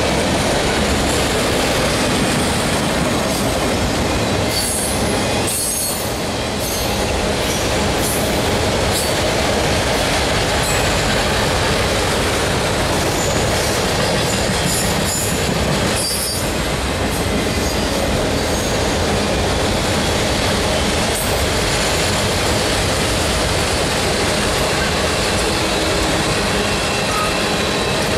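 Cars of a manifest freight train rolling past, a steady loud rumble and rattle of steel wheels on the rails, with a few brief high wheel squeals.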